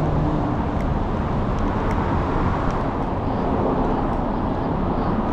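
Steady city street noise of road traffic, an even rumble with a few faint scattered ticks.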